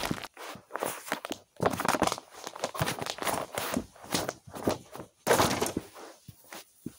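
Feet in sneakers stamping repeatedly on a paper journal lying on carpet: a run of irregular thuds and scuffs, a few per second.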